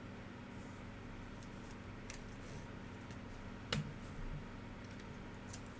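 Plastic card cases being handled: a few light clicks and taps, with one sharper click about two-thirds through, over a low steady hum.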